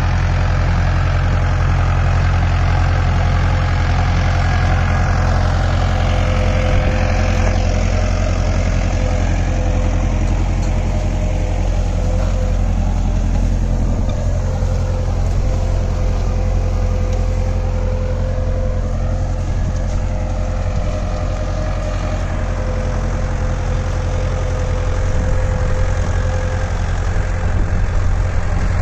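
Mahindra Arjun Novo 655 tractor's diesel engine running steadily under load as it pulls a three-bottom Lemken reversible mouldboard plough through the soil.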